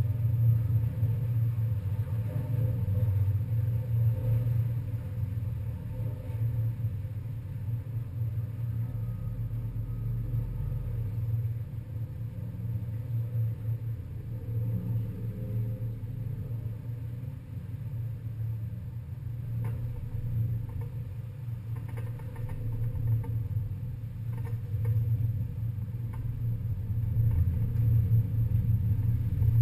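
Passenger ferry's engines running, heard on board as a steady low rumble, with a few faint clicks about two-thirds of the way in.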